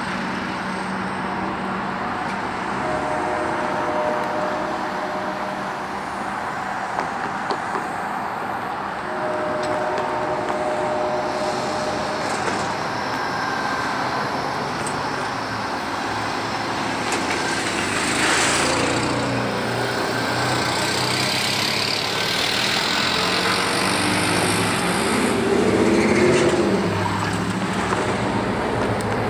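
Loaded stone hopper cars rolling away over the rails: a steady rumble of wheels and trucks on the track, with brief thin wheel squeals now and then.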